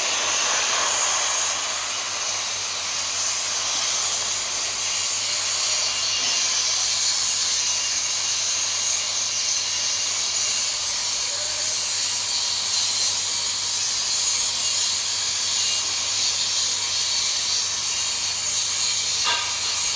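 TIG (argon) welding arc running a hot pass on a steel pipe: a steady hiss with a constant low hum underneath.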